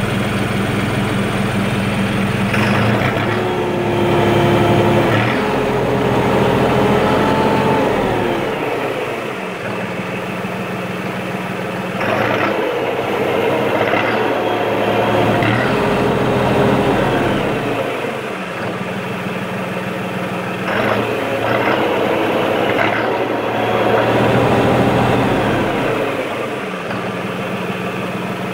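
Case IH Farmall 55A tractor's diesel engine idling, then revved up and let fall back to idle three times. This is the throttle-up after a short idle that the owner says makes it sputter and blow white and blue smoke, which he blames on a flawed EGR emissions system.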